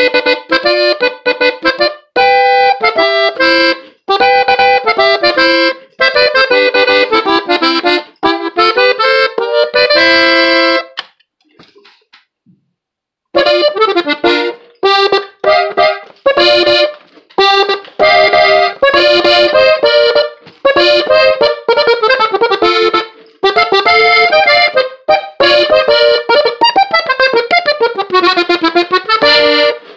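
Gabbanelli norteño diatonic button accordion tuned in G, played solo with melody notes over chords. It stops for about two seconds partway through, then resumes. This is a beginner's playing, with some slips.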